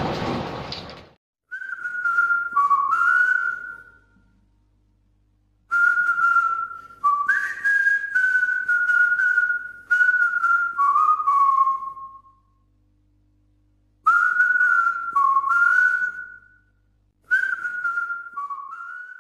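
A person whistling a short tune in four phrases, with brief pauses between them. A loud steady noise cuts off about a second in, just before the whistling starts.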